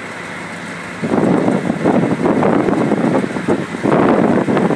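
Wind buffeting the microphone in gusts, fairly low for about the first second, then loud and rumbling for the rest.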